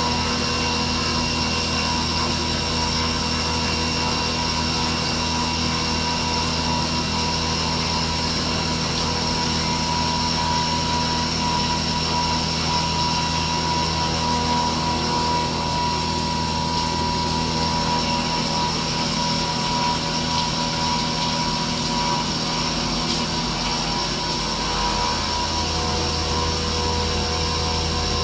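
CNC machine tool running steadily: a constant mechanical hum with a high, steady whine over it, the low part of the hum dipping briefly around two-thirds of the way through.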